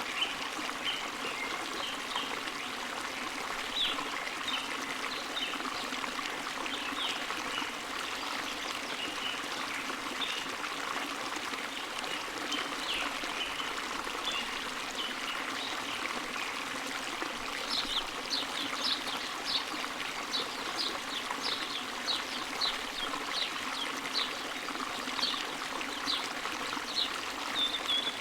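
Birds chirping over a steady rushing sound like running water. The short, high chirps are scattered at first, then come about two a second for the last ten seconds.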